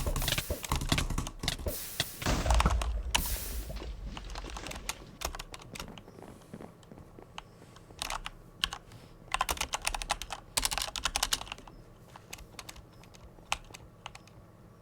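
Butterfly-knife style clicker toy being flipped, its handles clicking in quick flurries of sharp clicks. The clicks come thick in the first few seconds, again in bursts about midway, and as scattered single clicks later on.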